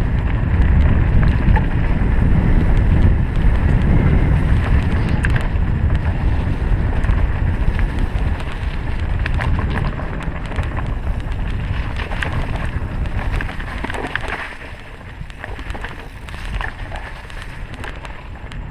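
Wind buffeting the microphone of a camera riding on a 2016 Trek EX9 29er mountain bike as it is ridden along a dirt trail, with the clicks and rattles of the bike over rough ground. The wind rumble eases after about ten seconds, and the clicks and rattles stand out more.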